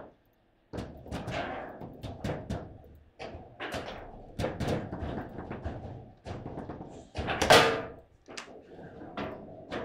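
Table football in play: the ball clacking off the figures and the rods knocking against the table in quick, irregular hits, with one loud hit late on.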